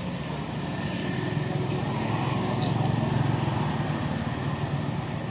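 A motor vehicle's engine passes by as a low rumble that grows louder toward the middle and then fades. A few short high chirps sound over it.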